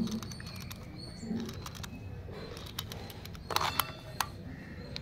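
Scattered light clicks and taps of a hollow plastic toy bird being handled and turned over in the hands, with a small cluster of clicks a little after halfway.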